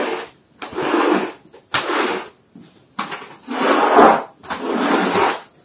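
Floor squeegee scraping soapy water and foam across a rough, wet concrete floor in about five pushing strokes, roughly one a second.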